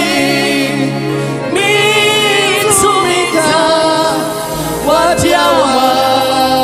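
Live gospel music: singing with a wide vibrato over sustained held chords.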